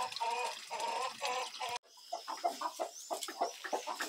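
Chickens clucking in short, repeated calls, about three a second. The sound breaks off abruptly just under two seconds in and comes back as denser, quicker clucking from several birds.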